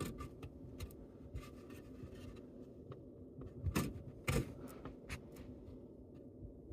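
Small handling noises from work on a dishwasher's plastic pressure switch and its fittings: scattered faint clicks and rustles, with two louder knocks about four seconds in.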